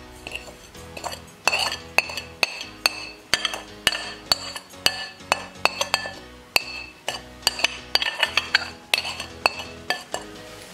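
A metal spoon tapping and scraping against a plate as spices are knocked off into a bowl: a run of sharp, irregular clinks, a few a second, over soft background music.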